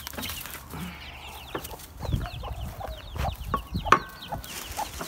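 Backyard hens clucking and giving short, quick chirps while they feed. There are low rustling thumps and a sharp click about four seconds in.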